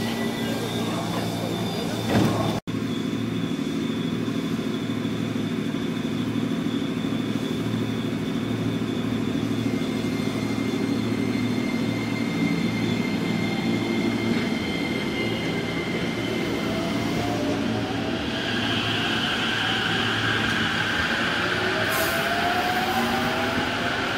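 205 series electric train running along the platform as it departs, a steady hum of motors and wheels with a few held whines. The sound cuts out for an instant about two and a half seconds in, and near the end several rising whines come in as a train gathers speed.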